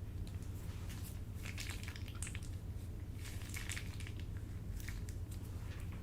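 Slime being squeezed and squished, giving clusters of short crackling, squelching pops over a low steady hum.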